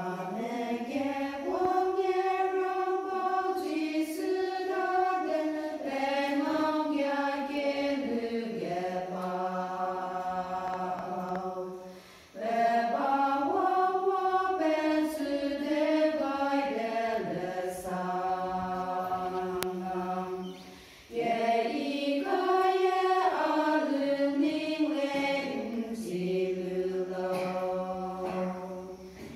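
Women's choir singing unaccompanied, in long sung phrases with short breaks for breath about 12 and 21 seconds in.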